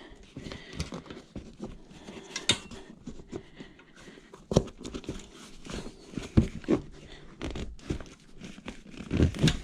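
Tire spoons prying a stiff tire bead off an e-bike's rear rim: irregular clicks and knocks of the levers against the rim and tire, a few sharper knocks in the second half.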